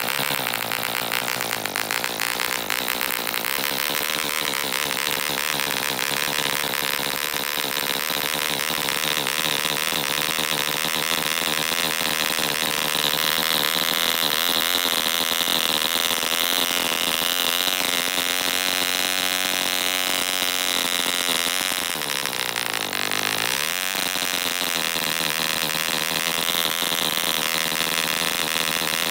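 Allen Mercury AM 10 1 cc model diesel engine running steadily, rich and slow, swinging an 8x4 propeller on its first run. Its speed shifts as the compression screw is turned, sagging sharply about 22 seconds in and picking up again.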